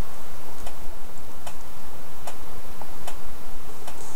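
Regular sharp ticks, one a little under every second, over a loud, steady hiss.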